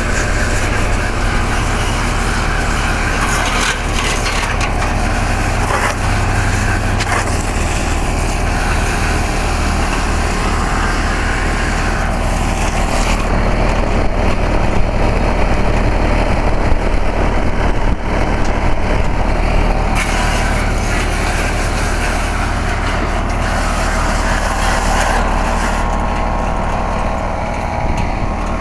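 Central air-conditioner condensing unit running: a steady hum from the compressor with the constant rush of its condenser fan.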